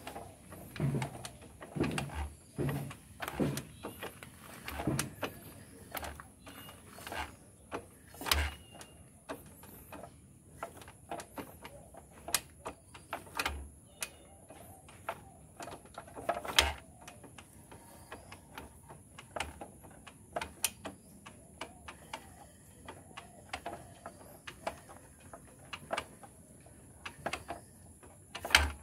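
Irregular sharp metallic clicks and knocks from hand tools and the exposed valve gear of a Hero Honda Hunk engine while it is being set up for tappet adjustment, the timing mark being brought into line with the valves released. The engine is not running; a few knocks stand out louder, one about halfway through and one near the end.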